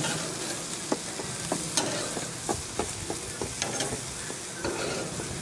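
Burger patties sizzling on a grill grate, with irregular clicks and scrapes of a metal spatula against the grate as the patties are moved and flipped.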